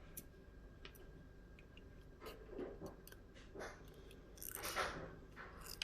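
Faint small metal clicks and short scrapes as lock pins are handled and pushed out of a pin-tumbler lock during disassembly, the loudest scrape about three-quarters of the way through.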